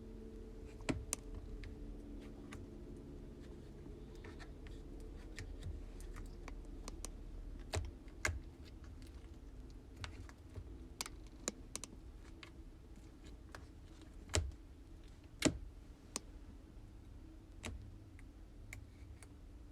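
Slime being squeezed and poked by hand, giving irregular sharp clicks and pops of trapped air over a faint steady hum.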